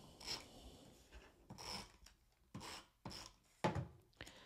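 Scrapbook paper and a tape runner handled on a tabletop: several short, soft rasping strokes of paper rubbing and tape being laid, with a light knock about three and a half seconds in.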